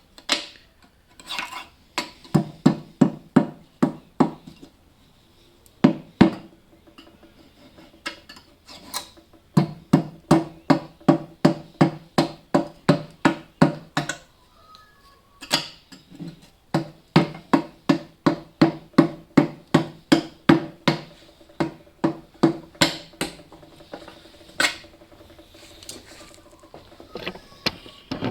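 A hammer tapping a thin knife blade to cut through a stuck, caked-on gasket, in runs of quick metallic strikes about three a second with a ringing note after each, pausing between runs.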